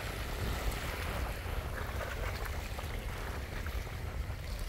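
Wind buffeting the microphone with a steady low rumble, over faint lapping of shallow water at the shore.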